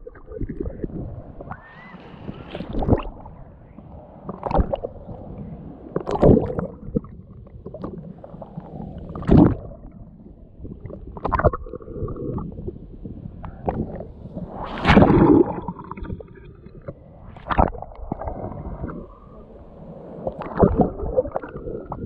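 Shallow sea water sloshing and splashing over a camera held at the waterline, with muffled gurgling as it dips under the surface. Irregular splashes come every one to three seconds, the loudest about nine and fifteen seconds in.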